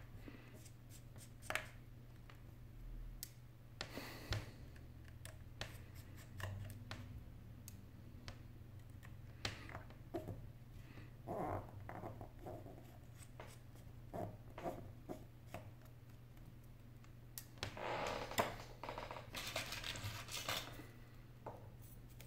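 Small clicks, taps and scrapes of fingers and small tools handling parts of an opened iPhone 8 Plus, over a steady low hum. A longer run of scraping and rustling comes near the end.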